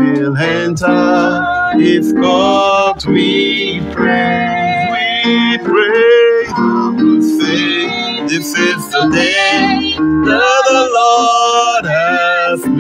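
A song with guitar accompaniment and a man singing.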